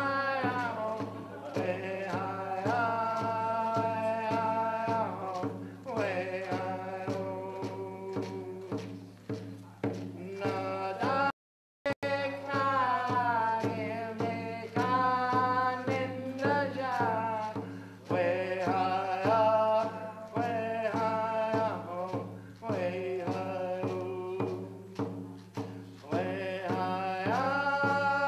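Background music: a voice singing a chant-like melody over a steady low beat and drone. The music breaks off for a moment about eleven seconds in and then carries on.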